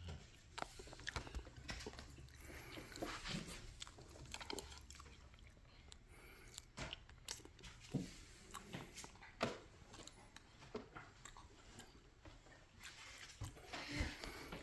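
Quiet eating sounds: chewing, with scattered light clicks and taps.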